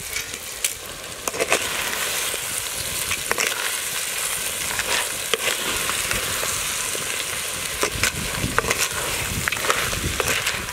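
Crab pieces sizzling steadily in hot oil in a clay pot, stirred with a coconut-shell ladle that makes scattered sharp clicks and scrapes against the shells and the pot.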